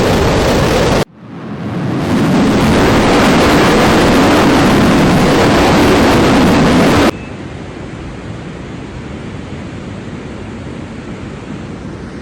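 Loud, steady rushing noise of floodwater, made of three spliced clips. The first cuts off abruptly about a second in, a louder stretch runs to about seven seconds, and a quieter, even rush follows.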